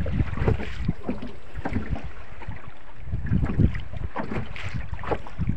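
Wind buffeting the microphone, with water slapping against the hull of a small boat in choppy sea, making irregular low thuds.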